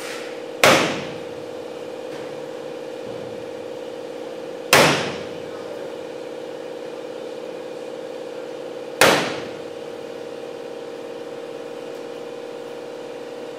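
A center punch snapping sharply into old aluminium rivet heads in a B-17's fuselage skin, three ringing strikes about four seconds apart, dimpling the rivets so they can be drilled out and the sheet metal removed. A steady hum runs underneath.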